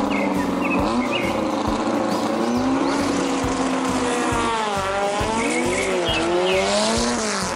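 Drag-racing cars, a Volkswagen Beetle drag car among them, revving hard at the start line and launching. The engine pitch rises and falls repeatedly, over a regular low thumping beat.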